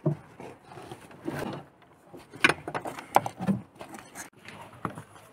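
Irregular knocks and clatter of wooden boards handled on a plank dog kennel, the sharpest two knocks a little under a second apart midway.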